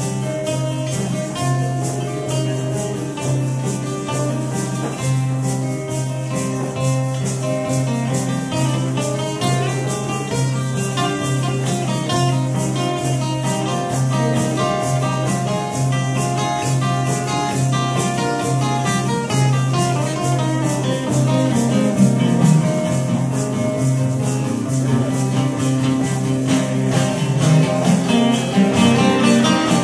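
Two acoustic guitars playing together in a steady strummed rhythm.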